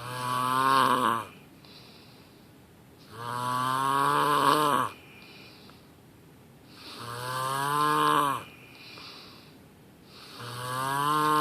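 A person snoring loudly in a steady rhythm: four long snores about three and a half seconds apart. Each snore's pitch rises a little and then falls. Quieter breaths come between them.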